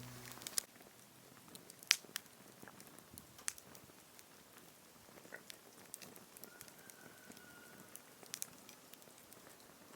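Swedish torch log fire crackling faintly: sparse, sharp pops scattered over a quiet hiss, the loudest about two seconds in.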